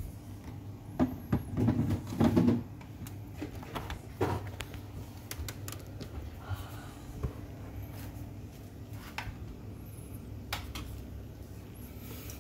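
Metal clunks and knocks as a tamped espresso portafilter is set into the group head of a Breville Infuser espresso machine, over a steady low hum. The loudest knocks come about one to two and a half seconds in, with a lighter knock and a few small clicks later.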